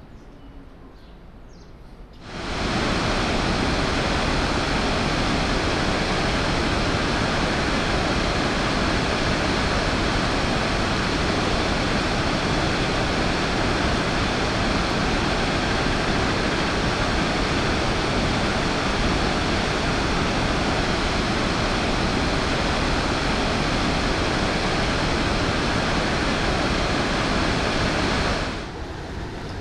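Rhine Falls waterfall: a loud, steady rush of whitewater pouring and crashing over rocks. It cuts in abruptly about two seconds in and drops away near the end.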